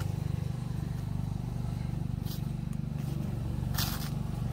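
An engine running steadily with a low, fluttering drone. A short rustle comes about two seconds in, and a louder scraping rustle comes near the end.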